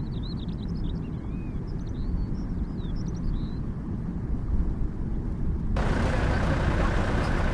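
Vehicle driving along a rough lane: a steady low rumble, with small birds chirping and twittering over it for the first few seconds. About three-quarters of the way through, the sound switches abruptly to a louder, even hiss.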